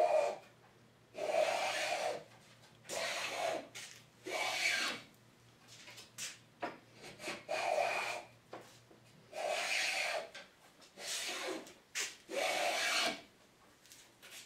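A low-angle Stanley No. 60½ block plane shaving bamboo strips held in a maple form, rough-beveling them toward a 60-degree angle. The plane rasps across the cane in about nine strokes, each a second or less, with short pauses between.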